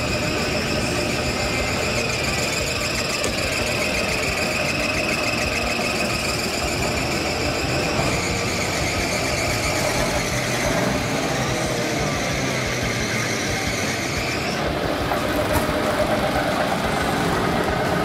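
A vehicle engine running with a steady high-pitched whine that shifts a little in pitch, the whine dropping away about fourteen and a half seconds in.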